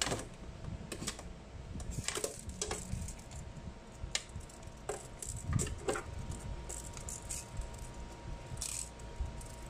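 Scattered light clicks and rattles of a tape measure being handled, its blade tapping against the winnower's duct and bracket, at irregular intervals.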